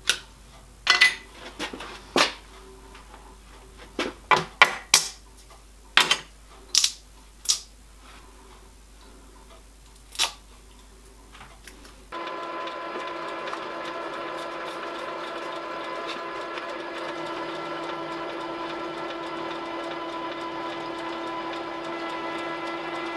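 Several sharp metallic clicks and knocks as small metal parts are handled in a steel milling vise. About halfway through, a CNC milling machine's spindle comes in with a steady whine of several held tones as an end mill cuts down a metal fixture.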